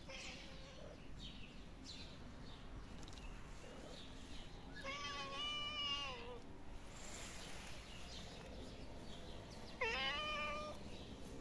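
Stray kittens meowing: one drawn-out meow about five seconds in, lasting nearly two seconds and dropping in pitch at its end, and a louder, shorter meow near the end.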